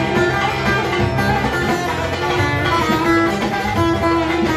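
Instrumental passage of a Turkish folk song: a bağlama (long-necked saz) picking a melody over keyboard accompaniment.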